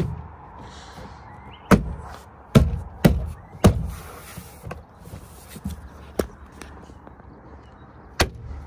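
Plastic retaining clips of a BMW E46 door card snapping into the door as the panel is pressed home by hand: a series of about seven sharp clicks and thumps, unevenly spaced, with a cluster in the first four seconds and one more near the end.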